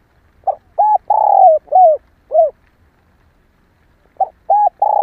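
Female spotted dove cooing: a phrase of five hollow notes with the third held longest, then a second phrase beginning about four seconds in.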